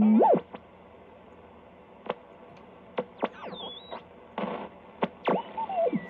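Lafayette HE-80 communications receiver's speaker audio as the main tuning is swept in search of CW, with the BFO on. Signals pass through as whistles gliding up and down in pitch over a faint hiss, with short blips in between. The loudest part is a steady low tone that slides away in the first half second.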